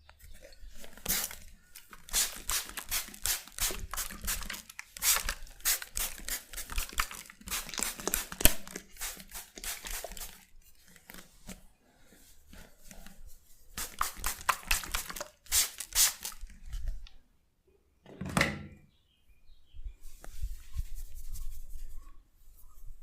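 Hands massaging a person's head, with quick rubbing and tapping strokes through the hair in two long spells separated by a short pause.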